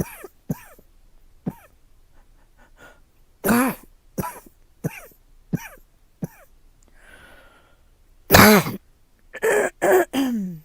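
A girl coughing repeatedly with a voiced, throaty edge. There is a run of about five coughs spaced less than a second apart, then after a pause a loud cough and a quick burst of three near the end.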